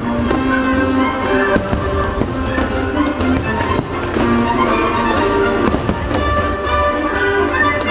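Orchestral music with brass, loud and continuous, with fireworks popping and bursting about twice a second over it.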